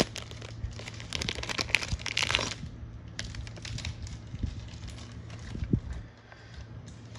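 Thin plastic bag crinkling as a stack of trading cards in hard plastic top-loaders is handled and pulled out, dense for about the first two and a half seconds. Then scattered clicks and taps of the rigid card holders being handled, ending about six seconds in.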